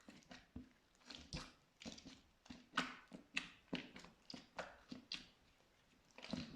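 Pink glitter slime being pressed and squeezed by hand, giving a run of short wet squelches and sticky pops, roughly one or two a second and uneven in strength.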